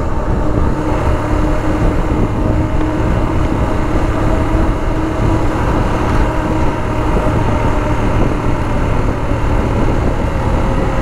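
Royal Enfield Himalayan's single-cylinder 411 cc engine running at a steady cruise, heard from on the bike under a dense, unbroken rush of wind and road noise.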